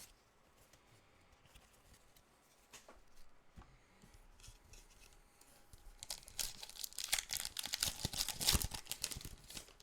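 Foil Pokémon booster pack wrapper crinkling and tearing open, a dense crackly rustle that starts about six seconds in after a few faint clicks and rustles.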